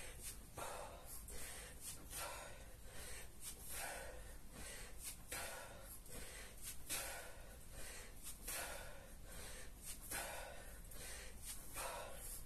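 A man's sharp, forceful breaths, one burst about every second, as he exhales hard through kettlebell swings. The breaths are the effort of a hard set.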